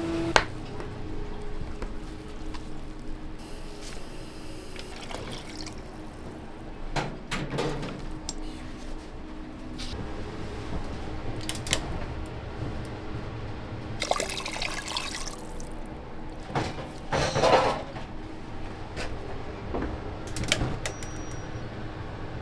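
Kitchen work at a stove: liquid pouring and splashing in several spells, the loudest lasting about a second near the end, with a few sharp clicks of metal pots and utensils over a steady hum.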